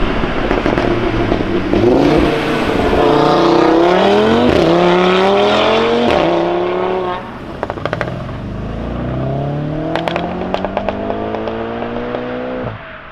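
Audi RS3 8V's turbocharged five-cylinder through a Milltek exhaust, accelerating hard through the gears. The engine note rises, drops at each upshift, and pops and crackles around the shifts and on lifting off.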